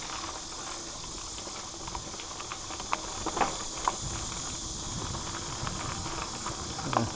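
Mountain bike rolling fast along a dirt singletrack: tyre noise and rumble over the ground, with a few sharp clicks and rattles from the bike over bumps about three to four seconds in.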